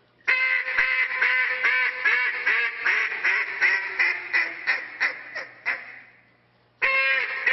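Handheld duck call blown by a contest caller imitating a mallard hen: a long, rapid run of quacks, a few a second, that tapers off about six seconds in and then starts again loudly near the end.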